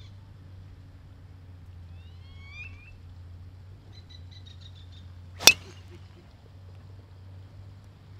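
A golf driver striking a ball off the tee: one sharp, loud crack about five and a half seconds in. Small birds chirp faintly a few seconds before it.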